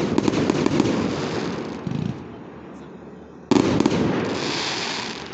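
Aerial firework shells bursting overhead, one just as the sound begins and another about three and a half seconds in. Each burst is followed by a dense crackle that fades away.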